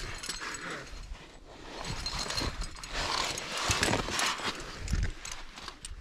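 A climber's clothing and gear rustling and scraping against granite as he moves along the rock, with small clicks and knocks.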